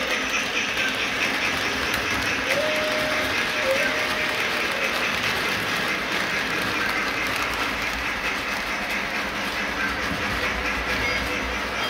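Model train running on a home layout: the steam locomotive and freight cars roll along the track with a steady whir and rattle of wheels. A short steady tone sounds for about a second, roughly two and a half seconds in.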